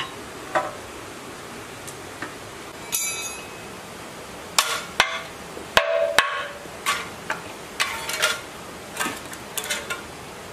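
Hand tool and metal parts being worked on an old diesel engine: scattered clicks, a ringing metal clink about three seconds in, then a quick run of sharp knocks and clanks as the tank is worked loose and lifted off its rusty mounting.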